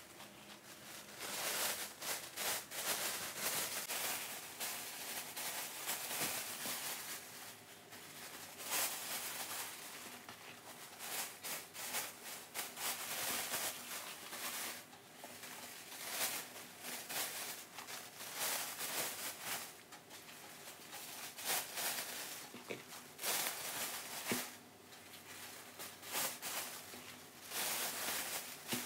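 Thin plastic bags rustling and crinkling in uneven surges as cling-film-wrapped rolls are handled and slipped into them.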